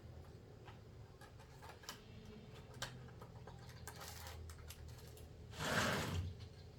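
Faint clicks and rustles of small objects being handled, with one louder, short rustling burst near the end.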